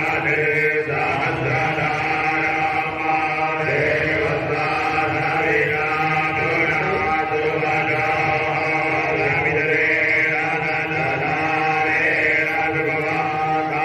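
Sanskrit mantras chanted continuously during the havan's final offerings into the sacrificial fire (purnahuti).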